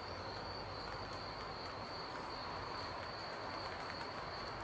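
Crickets trilling steadily in one unbroken high band over a faint background hiss.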